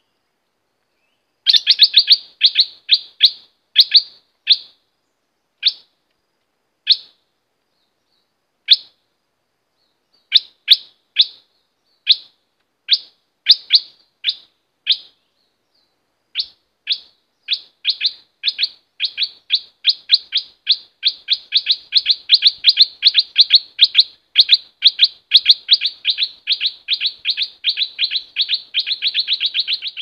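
Caged decoy songbird calling in short, sharp chip notes: spaced out at first, then quickening about halfway through into a fast, unbroken run of notes, several a second.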